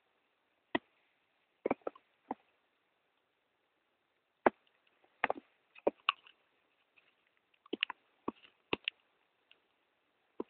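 Footsteps crunching in snow: short, sharp, irregular crunches, some in quick pairs or clusters, with quiet between.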